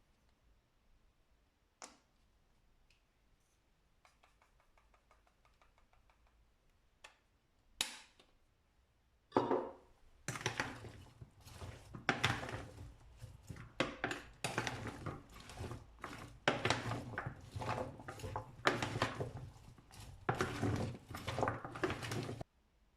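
Dishes and cutlery being handled: a few separate knocks in the first ten seconds, then continuous irregular clattering for about twelve seconds that stops suddenly near the end.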